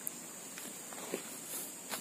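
A few footsteps and light knocks, spaced out, over a steady high-pitched hum.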